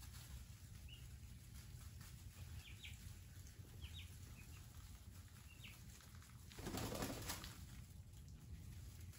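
Turkey poults peeping faintly now and then in short, high calls, over a low steady hum. About seven seconds in comes a brief, louder flurry of rustling.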